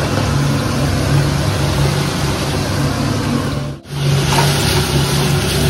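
Chopped onions and tomatoes frying in hot oil in a pan: steady sizzling over a low hum, cutting out for a moment about two-thirds of the way through.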